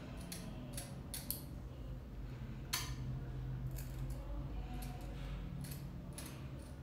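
Scissors snipping through a lock of wet hair: a run of short, sharp snips at irregular intervals, the clearest a little under three seconds in.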